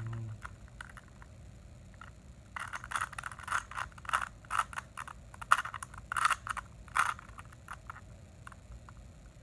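Plastic Rubik's cube being twisted by hand: a quick flurry of clicks and scraping rattles as its layers turn, busiest from about two and a half seconds in to about seven seconds in, with a few lighter clicks around it.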